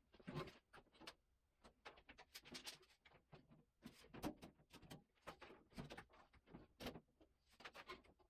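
Faint, irregular clicking, tapping and rustling of hand work on a bare car body.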